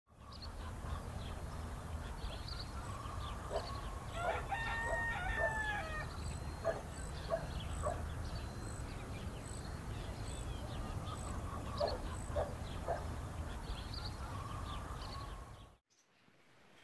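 Farmyard sounds: a rooster crows once, a long bending call about four seconds in, with hens clucking and small birds chirping over a steady low background rumble. It all cuts off suddenly near the end.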